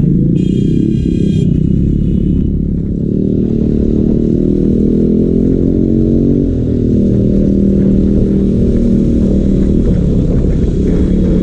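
KTM 250 Duke's single-cylinder engine running under way at low speed, its note rising and falling with the throttle. A brief high-pitched beep lasts about a second near the start.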